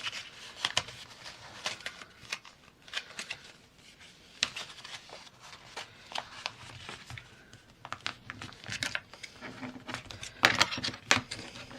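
Paper being handled and folded into thirds by hand, with irregular crinkles, rustles and small taps and a louder handling noise near the end.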